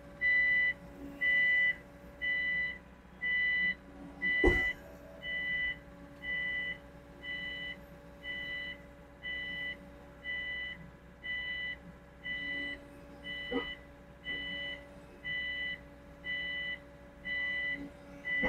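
Electronic warning beeper on a Sany SY80 excavator sounding about once a second while its hydraulic quick coupler is open to pick up a bucket, over the engine running steadily. A sharp metal clunk comes about four and a half seconds in, and a lighter one just past the middle.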